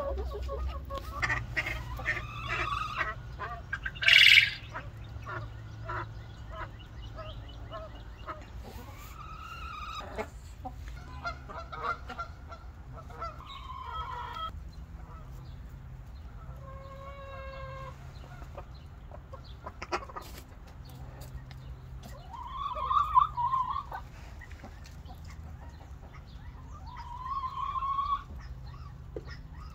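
Chickens clucking and calling, with one short, very loud squawk about four seconds in and two louder drawn-out calls near the end.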